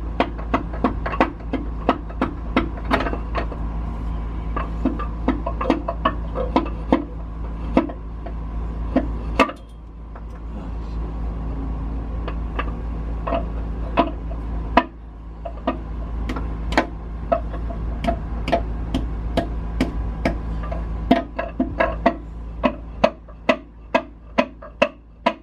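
Background music with a steady, evenly spaced beat of plucked notes.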